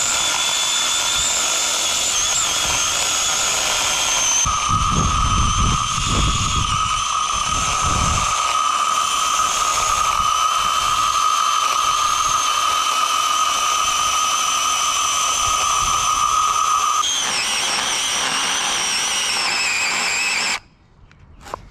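Cordless battery mini chainsaw running as it cuts into a log, a steady high whine. Its pitch sags near the end and it cuts out suddenly about twenty seconds in, with the cut short of halfway as its battery runs low.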